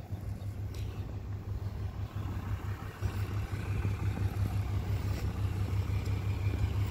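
Ram 2500's 6.7-litre Cummins diesel idling steadily with a low, even hum, still running after the truck caught fire.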